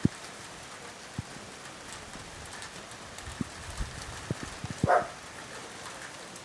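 Steady rain falling, with scattered low drip-like knocks and one louder knock a little before five seconds in.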